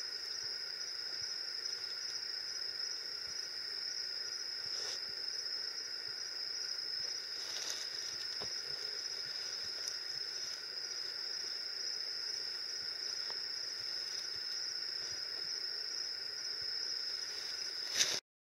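Steady high-pitched chorus of insects at dusk, unbroken throughout. A few brief rustles of gear being handled break in, and a louder knock comes near the end just before the sound cuts off suddenly.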